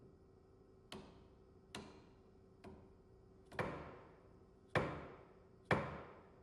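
Mallet striking the handle of a steel hook spanner six times to turn a bearing lock nut on its adapter sleeve, tightening it. The first three blows are light and the last three harder, each dying away over about half a second.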